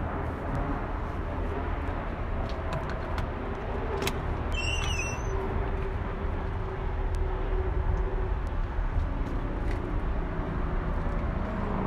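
Steady low rumble of a heavy truck engine idling. Scattered light clicks and knocks run through it, and there is a short high squeak about four to five seconds in.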